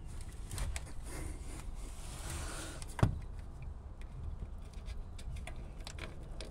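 Hands fumbling up under a car's rear bumper: rubbing and rustling, one sharp knock about three seconds in, then small scattered clicks as a finger works the release tab of a plastic electrical connector on the exhaust-valve motor.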